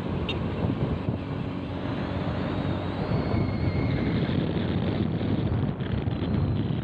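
Small motorcycle riding along, its engine running under heavy wind buffeting on the microphone.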